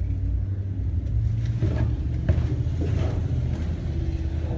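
Steady low rumble of road traffic from a busy highway, with a few faint knocks.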